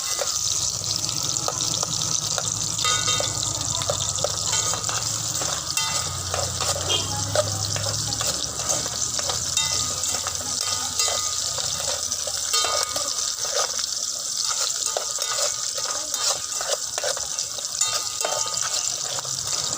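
Food frying in a pan while a spatula stirs it: a steady sizzle with frequent scrapes and clicks of the utensil on the pan. A low hum sits underneath during the first half.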